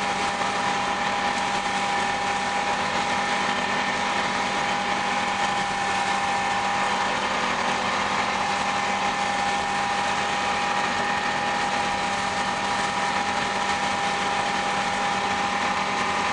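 John Deere 3300 combine running steadily while harvesting soybeans: a constant engine and threshing-machinery drone with a steady whine.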